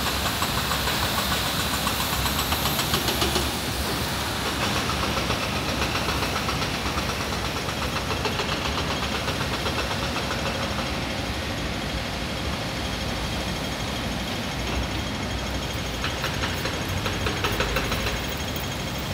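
An engine running steadily, with a fast, even rattle.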